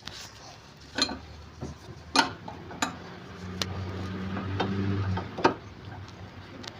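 Irregular sharp metallic clicks and taps, about six in all, from hand work on a car's front sway bar link fittings. A low hum swells under them in the middle.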